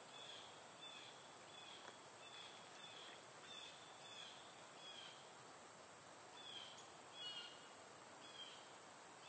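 Outdoor ambience: a steady high-pitched insect drone with short chirps repeating about every half second.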